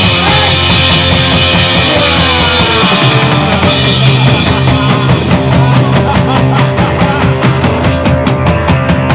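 Loud punk-style rock music from a band with a drum kit; from about halfway the drums come forward in a fast, steady beat.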